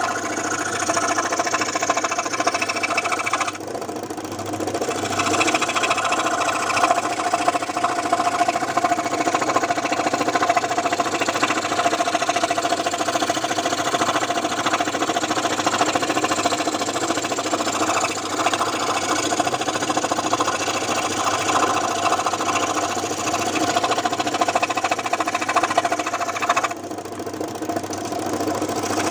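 Scroll saw running steadily with a constant hum and a dense higher rasp; the rasp thins out briefly about four seconds in and again near the end.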